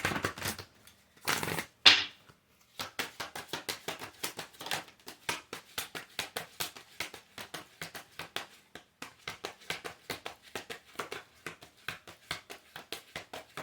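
A deck of cards being shuffled by hand: two brief swishes near the start, then a rapid, uneven patter of card edges flicking against each other.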